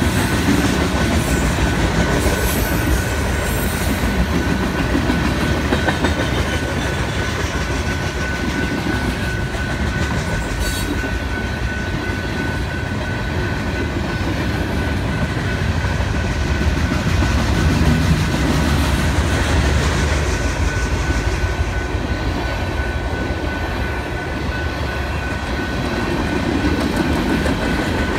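Freight train cars rolling past a grade crossing: a steady rumble with the clatter of wheels over the rails. A steady high tone runs throughout.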